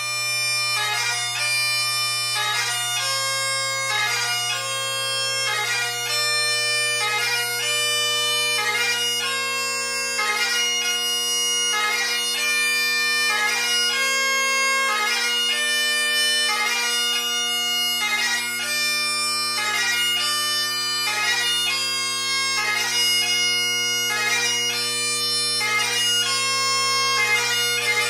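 Great Highland bagpipe playing pibroch: steady drones under the chanter, which plays the crunluath singling variation, its heavy crunluath grace-note movement coming about once a second.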